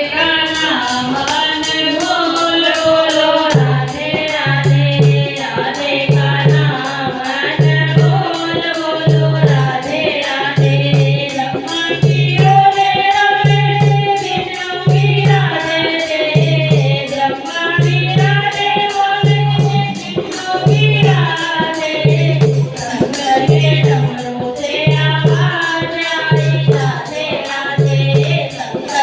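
Hindi devotional bhajan: a voice singing a melody over music, with jingling percussion and a low bass beat that comes in about three and a half seconds in and repeats a little over once a second.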